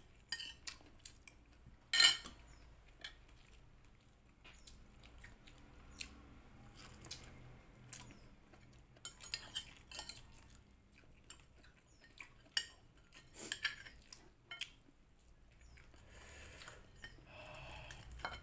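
Spoon and fork clinking and scraping against a plate while picking at rice and fried fish: scattered sharp clinks, the loudest about two seconds in.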